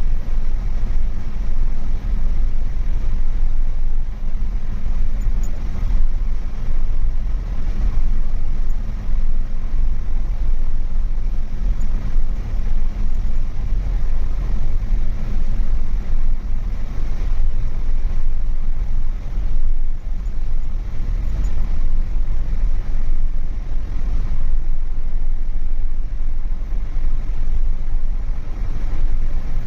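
Steady, loud low rumble of a car on the move, heard from inside the cabin: engine and tyre road noise.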